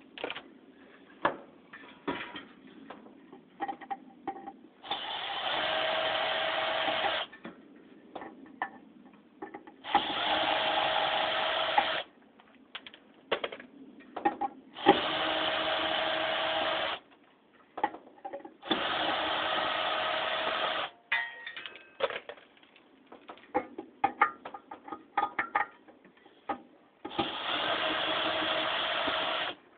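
Cordless power screwdriver running in five separate spells of about two seconds each, backing screws out of a ceiling fan's motor housing. Between the runs there are short clicks and knocks as the screws and the fan are handled.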